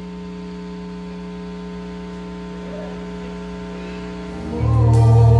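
Music: a held, steady chord. About four and a half seconds in, a deep bass note comes in and the music gets much louder, with a sharp hit near the end.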